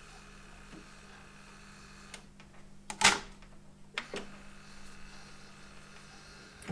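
Sony CDP-103 CD player's disc tray mechanism, on freshly fitted belts and re-greased slide rails, cycling open and shut. There is a sharp clack about three seconds in, then button clicks and the tray drawing closed again, with another click near the end.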